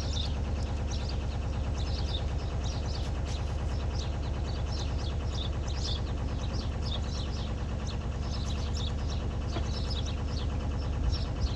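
Narrowboat diesel engine idling steadily, with small birds chirping repeatedly over it.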